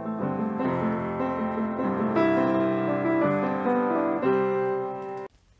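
Upright piano played in chords, the notes held and overlapping as the chords change; the playing stops suddenly near the end.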